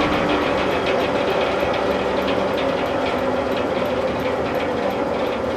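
Sawmill machinery running steadily, with a fast, even ticking of about three to four beats a second over the running sound.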